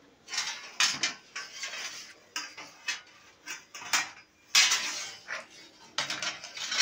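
Metal baking trays clattering and scraping as they are handled, in irregular sharp clanks with a longer scrape about two thirds of the way through.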